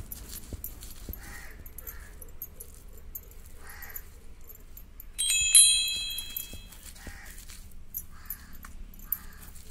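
Stone roller rubbing and pressing cooked chana dal against a flat stone grinding slab, a soft grinding and squishing. About five seconds in comes a sharp clink of glass bangles that rings brightly and fades over about a second.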